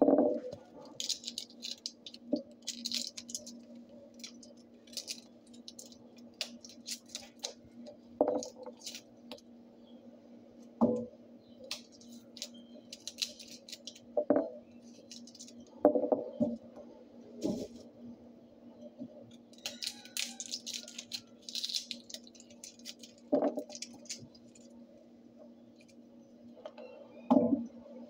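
Dishes being washed by hand in a kitchen sink: scattered clinks and knocks of dishes and utensils with bouts of scratchy scrubbing, over a steady low hum.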